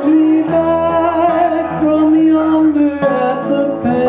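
Live acoustic music: a male voice singing a slow melody with long held notes over acoustic guitar and violin.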